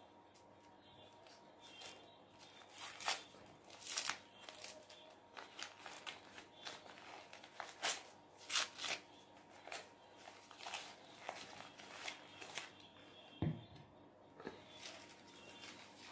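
Printed paper food wrapper crinkling and tearing as it is peeled open by hand, in irregular sharp crackles, with a single dull knock a little past the middle.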